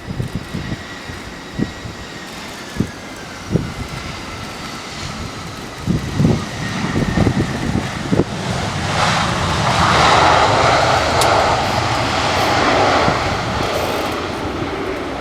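Airbus A320 jet airliner passing: its engines' whine slides down in pitch as it goes by, and the engine noise swells to its loudest about two-thirds of the way through, then eases. Wind thumps on the microphone in the first half.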